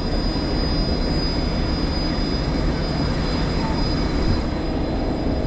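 Steady rumbling noise of a fishing boat at sea, with a thin, steady high whine over it.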